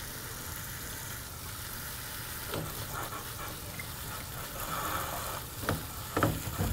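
Cold tap water running steadily from a kitchen faucet onto steamed broccoli in a colander in a stainless steel sink, shocking it to stop the cooking. A few light knocks come in the second half.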